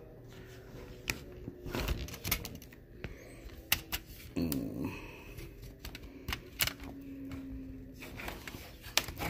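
Irregular light clicks and knocks from handling the opened-up HP laptop: plastic and metal parts being moved and set down.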